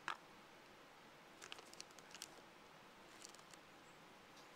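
A snap-on plastic lid clicks sharply as it comes off a small plastic tub, followed twice by soft crinkles and ticks of plastic packaging being handled.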